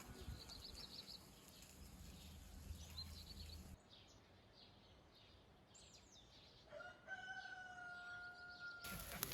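A rooster crowing once, a long held call near the end, after small birds chirp briefly in the first few seconds.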